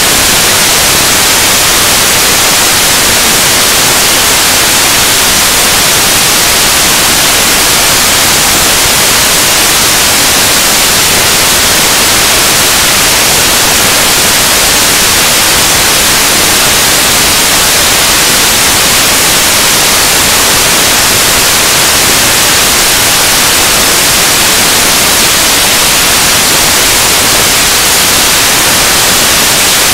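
Loud, steady static hiss like white noise, strongest in the high end, with no change in level or character.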